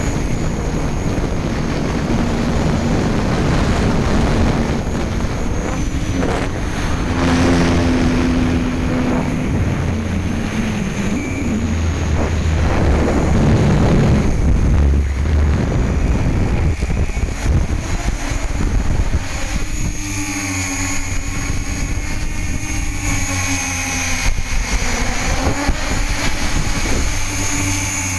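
Hexacopter's electric motors and propellers buzzing, heard from a camera mounted on the craft, with heavy wind buffeting on the microphone. The wind rumble eases in the last third, leaving the motor tone clearer as it rises and falls in pitch with the throttle.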